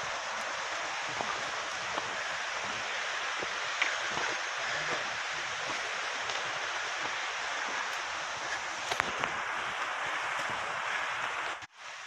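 Mountain stream rushing steadily, with a few faint footsteps on a dirt trail; the sound breaks off abruptly near the end.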